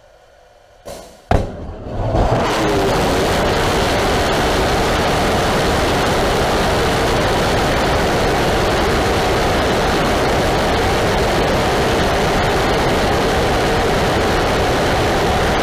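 DLX-150B liquid-oxygen/ethanol rocket engine igniting with a short burst and a sharp bang about a second in, then building to a loud steady roar of the burning exhaust. It is burning at a low chamber pressure and the wrong mixture ratio, with significant combustion instability.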